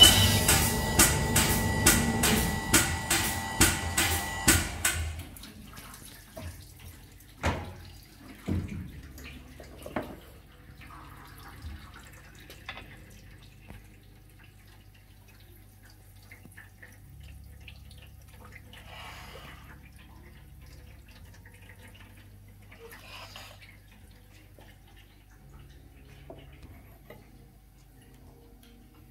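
Cylinder honing machine running, its hone stroking up and down in an oil-flooded engine bore with a steady rhythmic beat, then stopping about five seconds in. After that, quiet shop background with a few sharp metal knocks and clicks.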